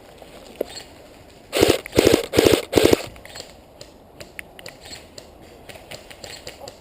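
Airsoft rifle firing four short full-auto bursts in quick succession, each a rapid string of shots, followed by faint scattered clicks.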